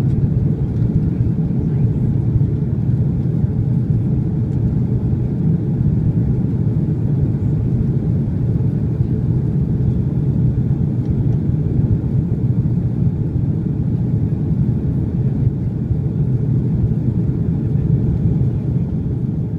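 Airliner cabin noise in flight: the steady low rumble of the jet engines and rushing air, heard from inside the cabin.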